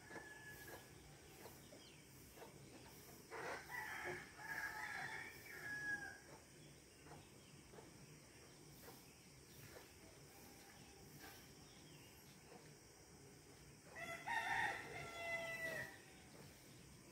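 A rooster crowing twice, about three seconds in and again near the end, each crow lasting a couple of seconds. Faint insects chirp in an even pulse throughout.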